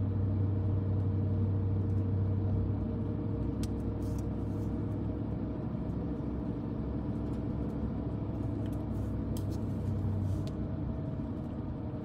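Car driving slowly, heard from inside the cabin: a steady low hum of engine and tyres, with a few faint clicks. The low hum eases off a little near the end.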